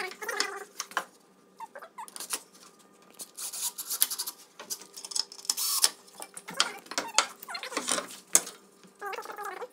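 Cordless drill-driver running in several short spurts, driving screws into pine boards, with squeaks as the screws and wood bind.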